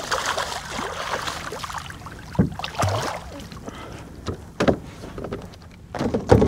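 A hooked black drum thrashing and splashing in the water beside a kayak, followed by several short, sharp knocks as it is brought aboard.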